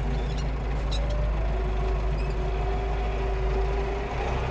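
Tractor diesel engine running steadily while driving over rough ground, heard from inside the cab, with a faint whine over the engine note.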